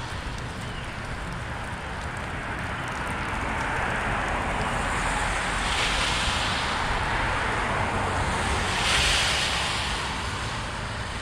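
A car passing by on the street, its tyre and road noise swelling to a peak a few seconds in and then fading away.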